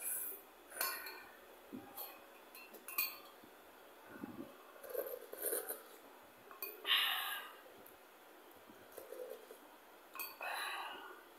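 A metal spoon clinking and scraping against a ceramic bowl of curry noodle soup, in short separate strikes, mixed with eating sounds: a longer slurp about seven seconds in and another near the end.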